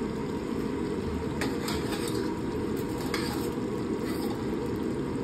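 Champaran chicken curry simmering in a clay pot on a gas flame: a steady low bubbling with a few faint pops. The chicken is cooked through and tender.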